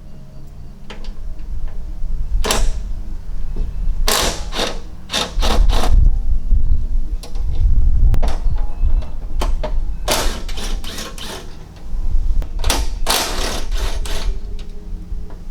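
A tool undoing the bolts that hold the stock front bash plate of a Toyota Prado 150, in repeated short mechanical bursts, several in quick succession and then again after pauses.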